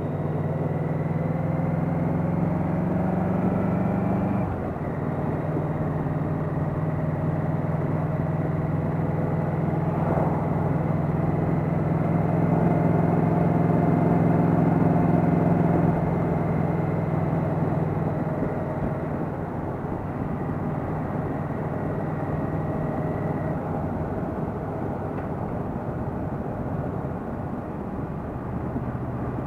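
Yamaha Venture touring motorcycle's V4 engine on its stock mufflers, cruising under steady wind and road noise. The engine note drops about four seconds in, swells louder for a few seconds midway, then eases off.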